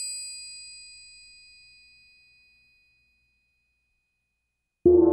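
Ring of a chrome counter call bell, several high tones dying away over about two and a half seconds. Music starts abruptly near the end.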